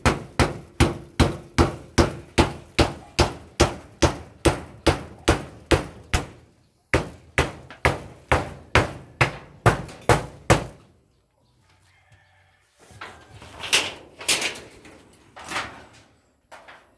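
Steady hammer blows on the pen's galvanized iron sheeting and wooden posts, about three a second with a slight metallic ring, pausing briefly about six seconds in and stopping near eleven seconds. Chickens call for a few seconds near the end.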